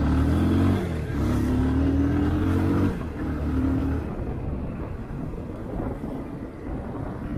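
Motorcycle engine pulling away and accelerating through the gears, heard from the rider's seat. The pitch climbs, drops at a gear change just under a second in, climbs again for about two seconds, drops again near three seconds, rises briefly once more, then settles into a steadier, quieter cruise.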